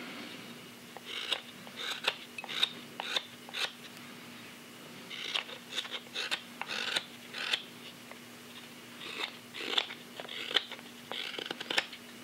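Hook knife shaving the inside of a green sycamore belt cup: short cutting strokes in quick runs of several, with brief pauses about four and eight seconds in. The wood is wet and soft. A faint steady hum lies underneath.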